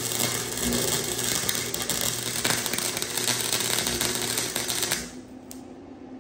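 Arc welder laying a weld bead on the mower's steel front axle mount: a dense, loud crackle that stops suddenly about five seconds in as the arc is broken.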